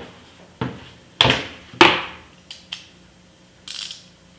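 Kobalt socket set and its hard plastic case being handled: three sharp knocks with a short ring in the first two seconds, then a couple of light metal ticks and a brief scrape near the end.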